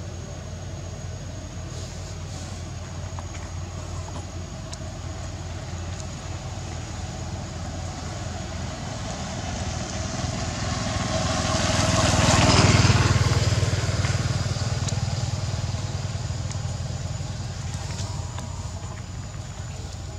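A motor vehicle passes by, growing louder to a peak about twelve seconds in and then fading, over a steady low hum.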